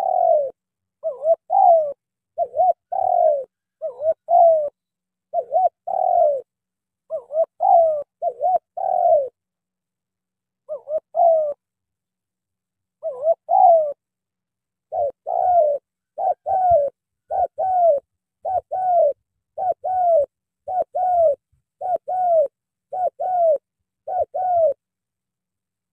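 Spotted dove cooing: a long series of short, repeated coos, roughly one a second. The series breaks off for a few seconds about a third of the way in, then runs on evenly and stops near the end.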